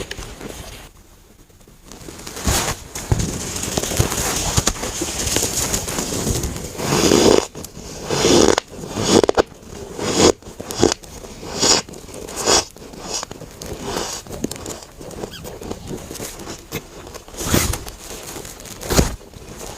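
Close-up crunching bites and chewing of dry, powdery freezer frost chunks: a few seconds of steady crunching, then a run of loud, separate crunches about one a second, then softer ones.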